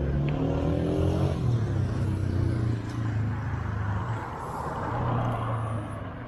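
Street traffic: a car engine rising in pitch as it speeds up in the first second or so, then a vehicle passing close, its noise swelling and dying away near the end.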